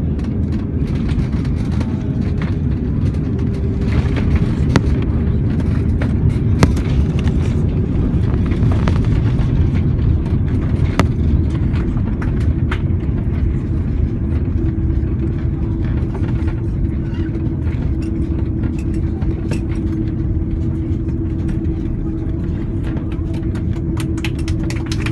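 Cabin noise of a jet airliner rolling along the runway after landing: a loud, steady deep rumble of engines and wheels on the runway, with scattered rattles and clicks. A steady hum joins about halfway through.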